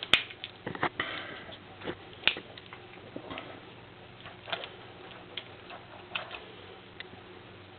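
Switchblade knife being handled and worked: a string of irregular sharp metal clicks from its blade and lock, the loudest at the very start and about two seconds in, with softer taps between.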